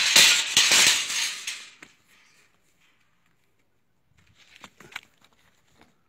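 Sardi ram's woolly fleece brushing and scraping against the recording phone: a loud, rough rustle with crackles lasting under two seconds, then a few faint clicks and taps about four to five seconds in.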